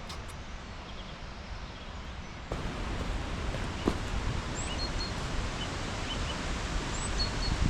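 Steady rushing of fast-flowing river water from a waterfall in spate, louder after a sudden step about two and a half seconds in. A few faint, short, high chirps sound over it.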